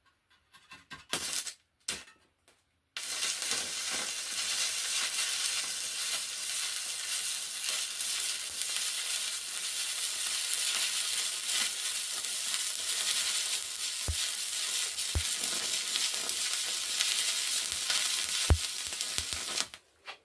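Stick welder's arc crackling steadily with a stainless rod on a steel exhaust flange, after a few brief scratches as the arc is struck. The crackle runs about seventeen seconds, with a few faint knocks, and cuts off suddenly near the end.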